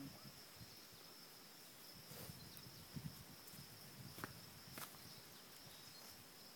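Quiet outdoor ambience with a faint, steady, high-pitched insect drone and a few soft ticks.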